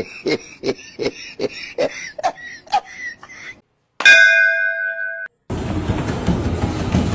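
A rhythmic run of clicks, about two and a half a second, with vocal sounds over them; then about four seconds in a single loud bell-like ding that rings for about a second; then, from about five and a half seconds, a steady rumbling noise.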